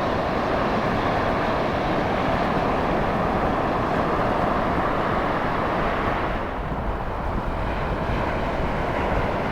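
Ocean surf rushing steadily on the beach, a broad, even wash of noise that eases for a moment about two-thirds of the way through.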